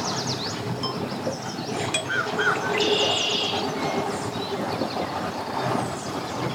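Steady wind and a motor running, with small birds chirping throughout and a crow cawing about two seconds in.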